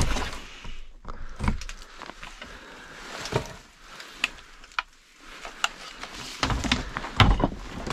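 Handling noise from a portable LED work light being picked up and fiddled with: scattered sharp clicks and knocks with rustling between them, growing busier near the end.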